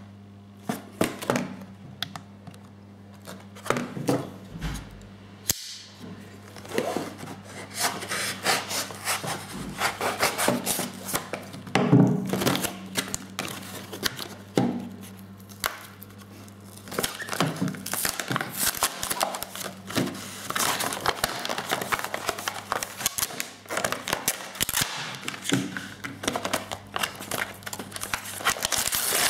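Plastic blister packaging and its card backing being handled and pulled apart by hand: irregular crinkling, clicks and knocks, with a louder knock about twelve seconds in and card tearing near the end. A steady low hum runs underneath.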